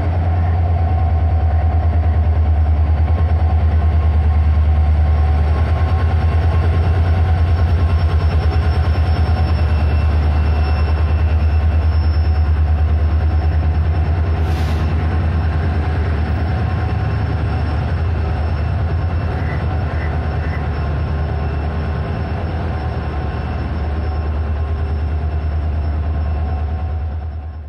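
Indian Railways WDP-4D diesel locomotive, with its EMD sixteen-cylinder two-stroke engine, running slowly past at close range, followed by its passenger coaches rolling by. A steady low engine drone runs under the rattle of the wheels, with a brief hiss about fifteen seconds in.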